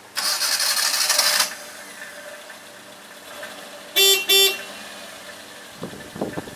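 The 2013 Tiger Truck Star van's 995cc four-cylinder gas engine starts with a loud burst of noise lasting about a second and a half, then idles steadily. About four seconds in, the van's horn gives two short beeps, and a few low thumps follow near the end.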